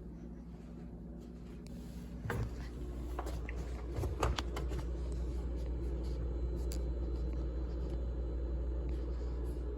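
GE GTH18XCTZRBB refrigerator running with a steady low hum that grows louder about two seconds in, with a few clicks and knocks between about two and four and a half seconds in.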